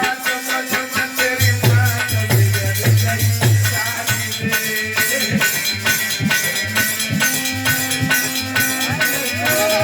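Instrumental interlude of live Indian folk music: a fast, even percussion beat with a drum, over held melodic tones, and a pulsing bass line that comes in about a second and a half in.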